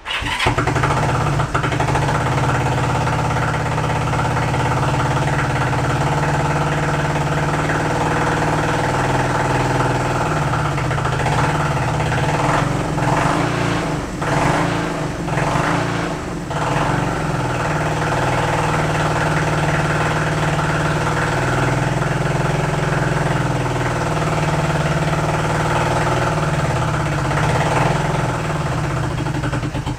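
1971 Honda CB350's air-cooled parallel-twin engine running unevenly, its speed wavering and dipping about halfway through, then stopping at the end. It is firing on the left cylinder and hardly on the right, which the owner suspects has no float in its carburetor.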